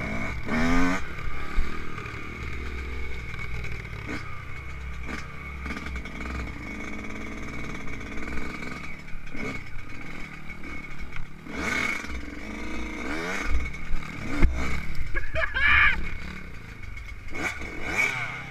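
Yamaha YZ125 two-stroke motocross bike running and revving off-road, the engine rising and falling in pitch several times, with knocks and clatter as it rides over bumps and rough ground.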